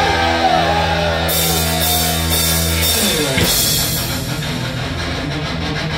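Live heavy metal band: a distorted electric guitar (a Flying V) holds one low chord for about three seconds over drums and cymbals. It then slides down and back up and breaks into busier riffing.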